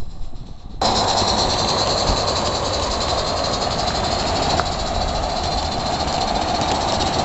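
Accucraft live-steam model of the Beyer Peacock tank locomotive Mannin running on a garden railway: a steady hiss of steam together with wheel and rail noise. It comes in suddenly about a second in.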